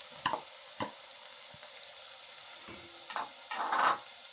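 Onions and ginger frying in cooking oil in a sufuria, a faint steady sizzle. A spoon clicks against the pot twice in the first second, and a louder stirring scrape comes near the end.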